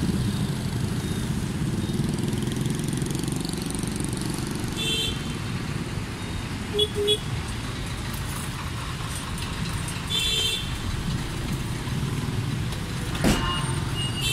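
Dense motorbike and car traffic circling a roundabout: a steady rumble of engines and tyres, with short horn beeps a few times, including two quick toots about seven seconds in. A sharp knock near the end is the loudest moment.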